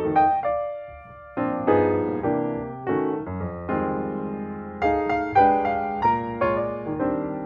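Background music: a piano playing a melody over chords, each note struck and then fading.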